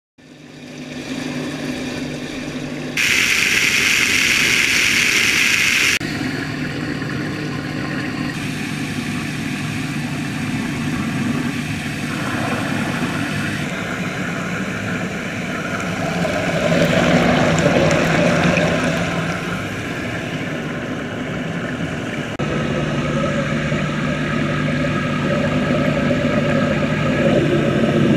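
Water churning in a tank, with a steady motor hum under it. The sound shifts abruptly several times, with a loud hiss from about three to six seconds in.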